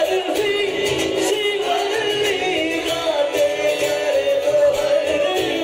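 Live band playing a song through the PA: singing over acoustic guitar, bass guitar and a cajon beat.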